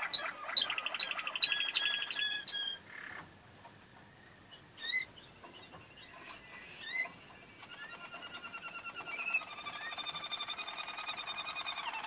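Caged canaries singing. For the first two and a half seconds there is a loud run of sharp repeated high notes, about three a second, over a fast rolling trill. After a pause with a few single chirps, a long, steady rolling trill starts at about seven and a half seconds.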